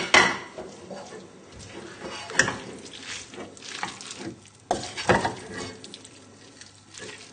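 Wooden spoon stirring and folding tagliatelle and salmon in a frying pan: irregular soft scrapes and squelches, with a few louder strokes against the pan.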